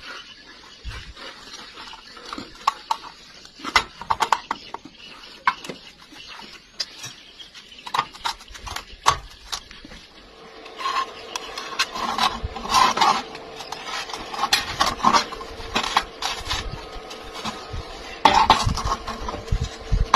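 Irregular metallic clinks, taps and knocks, as of steel pieces being struck and handled during bending and fitting. From about halfway in, a steady faint hum runs under the knocks.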